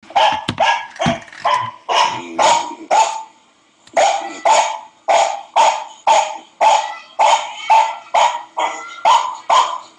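Another dog barking over and over, about two barks a second, pausing for about a second near the middle before starting again.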